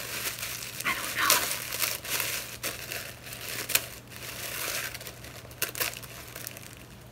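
Green tissue paper crinkling and rustling in irregular bursts of crackle as a wrapped gift is pulled open by hand.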